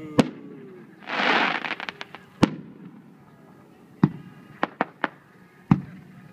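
Aerial firework shells going off: four sharp bangs a second or two apart, a few smaller pops, and a short hissing rush about a second in.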